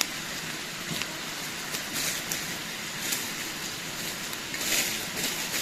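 Steady rush of a small forest creek's flowing water, with a few brief louder bursts.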